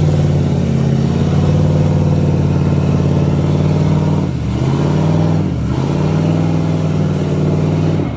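An off-road vehicle's engine held at high revs. The revs dip briefly and climb back twice, about four and a half and five and a half seconds in, and fall away at the very end.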